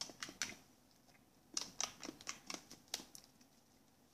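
Fluffy slime being poked and pressed with fingers, its trapped air making quick crackly pops and clicks in two bursts with a quiet gap of about a second between them.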